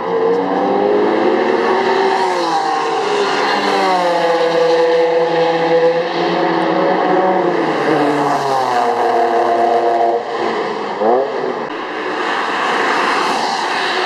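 Sports car engine accelerating hard and changing gear: the pitch climbs in several long sweeps and drops back at each shift, with a quick sharp rev rise about eleven seconds in.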